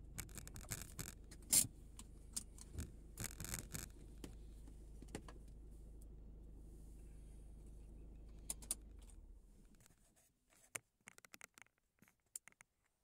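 Car engine idling with a steady low hum as the car creeps forward, shut off about nine to ten seconds in. Scattered clicks and rattles sound over it and go on sparsely after it stops.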